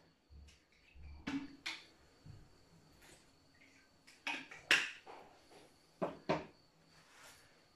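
Handling noises: a series of short knocks and rustles, roughly in pairs, as a phone and a water bottle are handled on a wooden floor, the loudest a little past the middle. A faint steady high whine sits underneath.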